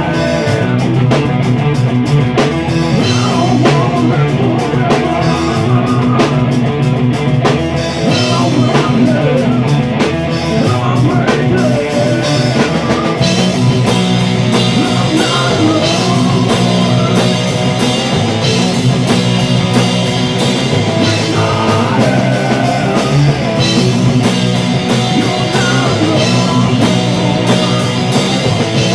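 Rock band playing loud and steady: electric guitar, electric bass guitar and a drum kit.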